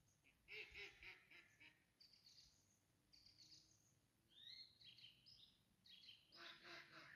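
Faint birdsong: several birds give high chirps and short rising and falling whistles. Two spells of lower, rougher calls come about half a second in and again near the end.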